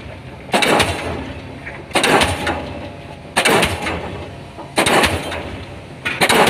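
DD 55 diesel pile hammer driving a 500 mm pile: five heavy blows at a steady pace of about one every 1.4 seconds, each a sharp bang that dies away over about a second.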